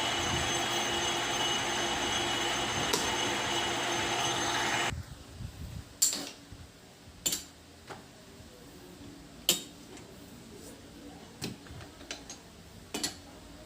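Lathe running steadily with a hum of several held tones, cutting off suddenly about five seconds in; afterwards a handful of sharp clicks and knocks.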